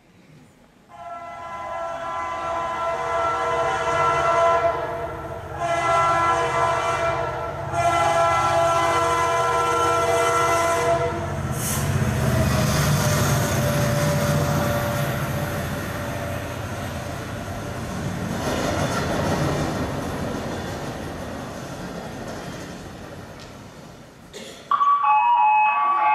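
Train sound effect: a train horn sounds three long blasts, then a train rumbles along, slowly fading away. An electronic chime starts near the end.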